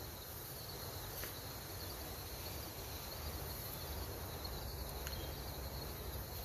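Quiet outdoor ambience: a steady high insect trill over a low rumble, with one faint tick about a second in.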